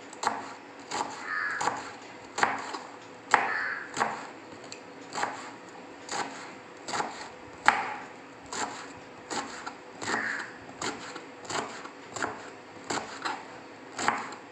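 Kitchen knife chopping a ridge gourd into small pieces on a plastic cutting board: sharp knocks of the blade striking the board, about two a second at an uneven pace.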